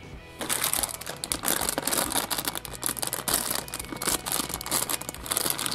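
Printed plastic blind-bag packet crinkling as hands tear it open and handle it. It starts about half a second in as a continuous crackle of many quick crinkles.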